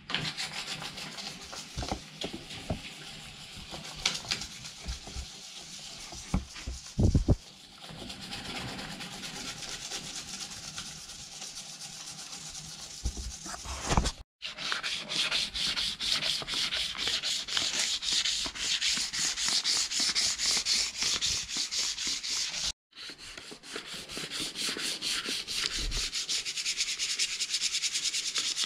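A sheet of 400-grit sandpaper rubbed by hand over the painted steel of a Honda Civic engine bay in quick back-and-forth strokes, scuffing the old paint to prepare it for primer. There are a couple of dull knocks along the way.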